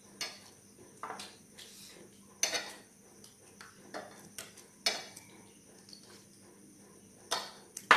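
Tableware sounds of a meal eaten by hand: scattered light clinks and scrapes against plates and foil takeaway trays, about seven separate knocks over a quiet room.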